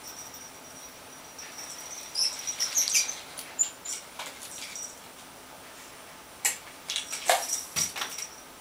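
Small jingle bell on a cardboard cat toy jingling as it is jerked along on fishing line. It comes in two clusters of high rings and ticks, one about two seconds in and another near the end.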